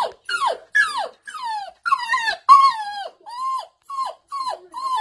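Toy poodle crying in a quick run of high whines, about two a second. The first few slide down in pitch; the later ones hold level and then drop at the end. She is crying to get out to the other dog and her owner, whom she can see playing in the back garden.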